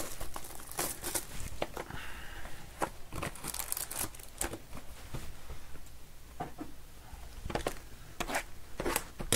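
Foil and plastic trading-card wrappers crinkling and tearing as card boxes and packs are handled and opened by hand, in a run of irregular sharp rustles and rips.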